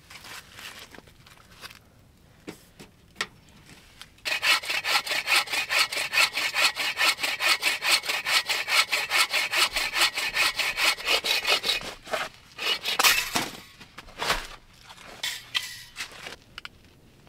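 A saw cutting through a dead wooden log in quick, even back-and-forth strokes, kept up for about eight seconds. Scattered knocks and scrapes of the log being handled come before and after it.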